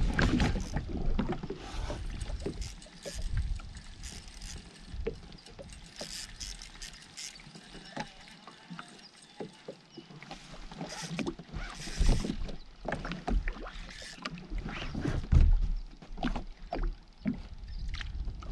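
Small-craft sounds on open water: water lapping against the hull of a drifting jet ski, with many irregular small clicks and knocks as an angler handles his rod and reel, and a couple of low thumps, the loudest just at the start and about 15 seconds in.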